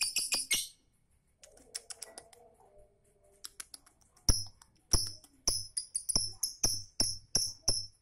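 Rhythmic music of sharp tambourine-like jingles over a low beat. It breaks off under a second in, leaving a few faint clicks and a low chatter, and comes back strongly about four seconds in.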